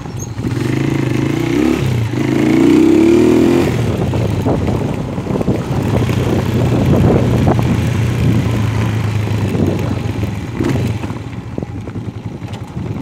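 Kuba Gold 170 FXi motorcycle engine pulling away under throttle, rising in pitch twice in the first few seconds as it revs through the gears. It then runs steadily while riding along a gravel dirt track, and eases off near the end.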